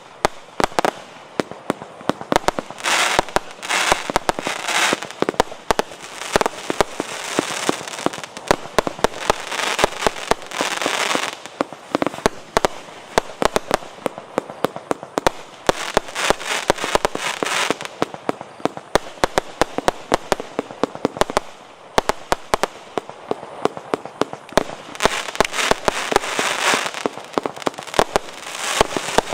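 Multi-shot firework battery (JF C25-196/01) firing a rapid, continuous stream of bangs. Every few seconds the shots thicken into dense stretches of crackle lasting a second or more.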